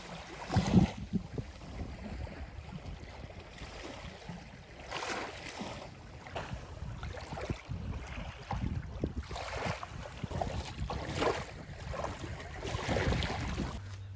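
Ocean waves washing in and breaking in repeated swells, with wind buffeting the microphone as a low rumble; the loudest gust comes right at the start.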